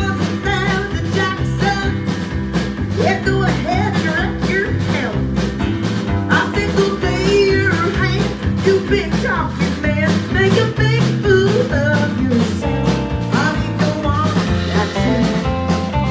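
Live country band playing with a steady beat: drums, electric bass and guitar, with a woman's voice singing over it.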